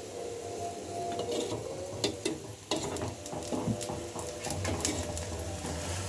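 A besan chilla cooking on a hot iron tawa, frying with a faint steady sizzle, with scattered clicks and scrapes of a steel spatula against the pan, most of them in the middle.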